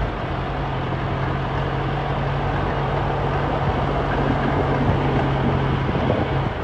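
Truck engine running with a steady low hum as the truck drives slowly along a flooded road, over an even hiss of water and rain.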